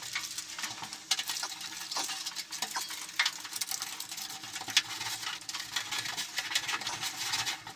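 Adhesive aluminium foil tape and the flexible aluminium dryer duct crinkling and crackling as the tape is wrapped and pressed around the duct joint by hand. The sound is a dense run of small, irregular, sharp crinkles.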